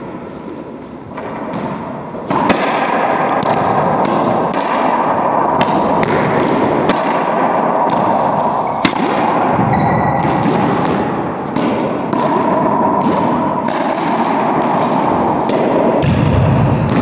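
Racquetball being struck and hitting the court walls and floor: sharp smacks about once a second, ringing in the enclosed court. From about two seconds in, a loud steady rushing noise runs under the smacks.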